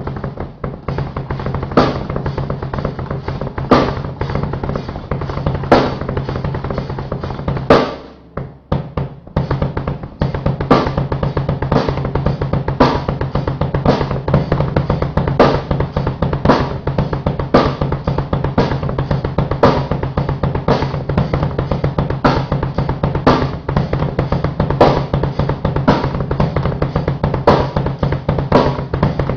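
Very fast, continuous bass drum strokes from a Gibraltar 5611DB pedal, played with swivel-foot and heel-toe technique, with a louder accent on the kit about every two seconds. The playing breaks off briefly about eight seconds in and picks up again about two seconds later.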